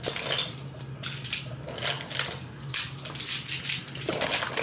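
Makeup brushes and small hard cosmetic containers clicking and clinking against each other, several times a second, as they are rummaged through.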